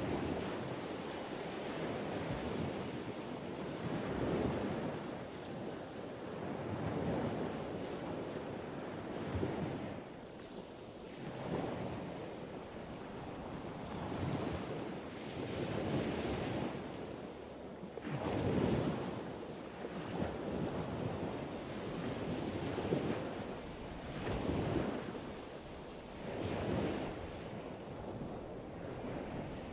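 Wind noise on the microphone mixed with waves washing against the wharf: a steady rush that swells and eases every couple of seconds.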